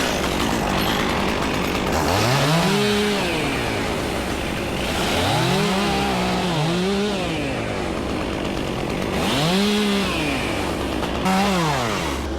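Two-stroke chainsaw revved up and eased back about five times, its engine pitch swelling and falling with each throttle squeeze, as it cuts through wood.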